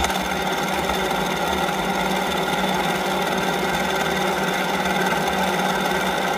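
An engine idling steadily, an even running sound without change in speed.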